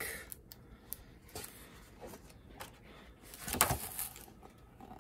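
Handling of a large art book: faint taps and rustles, then a heavy-paper page turning with a short papery swish about three and a half seconds in.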